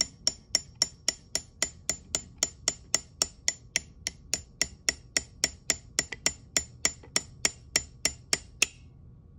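Small hammer tapping a roll pin punch in a steady run of light metallic taps, about three or four a second, driving the bolt catch roll pin into an AR-15 lower receiver; the tapping stops shortly before the end.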